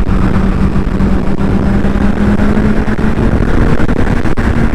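Kawasaki Z1000R inline-four engine running at a steady note while riding, rising slightly near the end, over heavy wind and road noise on the rider's microphone.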